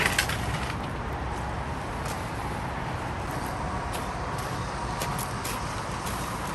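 Steady rushing outdoor ambience of river and rain, with a short clatter right at the start and scattered light ticks after it.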